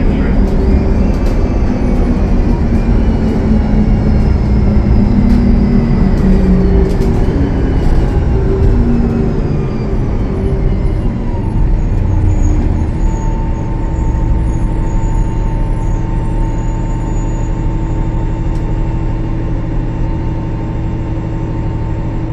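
Cummins ISL9 diesel engine and Voith transmission of a 2013 Gillig Low Floor transit bus running, with the engine and transmission whine falling in pitch for about the first ten seconds as the bus slows. It then settles into a steady drone.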